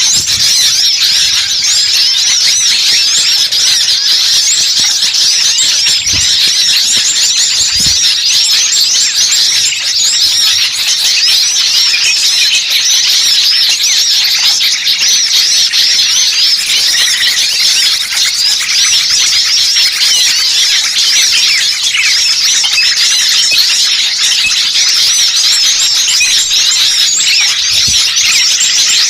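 A dense, steady chorus of many small birds chirping and chattering at once, high-pitched and unbroken: a noisy small-bird recording of the kind played as a lure to draw wild birds in.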